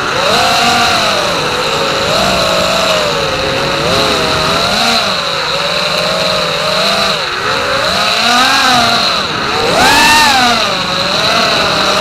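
Racing quadcopter's Racerstar BR2307S 2500KV brushless motors spinning DalProp T5045C props, heard from on board: a buzzing whine that rises and falls in pitch with the throttle, dipping briefly about seven and nine seconds in and swinging highest about ten seconds in, over a steady high tone.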